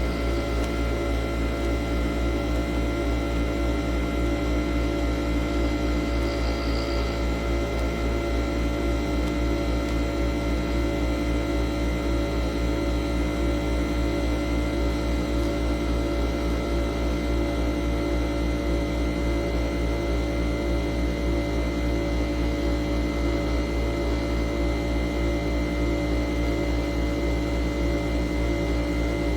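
Nespresso Vertuo Pop+ capsule machine brewing a cup of coffee: a steady mechanical hum from its pump and the capsule spinning at high speed.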